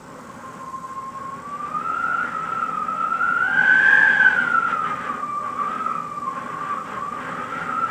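Wind whistling through a gap in a cottage window: a single whistle that rises in pitch and swells to its loudest about four seconds in, then falls back and wavers, over a faint rush of wind.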